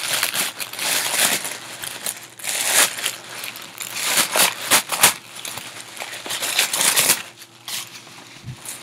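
Tissue paper rustling and crinkling in irregular bursts as it is handled and pulled out of a gift bag, with a few sharp crackles about five seconds in.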